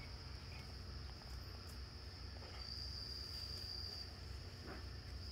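Faint, steady high-pitched whine over a low hum, growing louder for a second or so midway.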